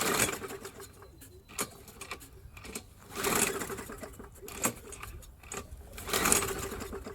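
Briggs & Stratton push-mower engine cranked three times with its pull-start cord, each pull a brief fast whir with a rush of air as it turns over without firing, since the spark plug is out. It is being primed with gas poured into the plug hole to suck old fuel out of the gummed carburetor emulsion tube.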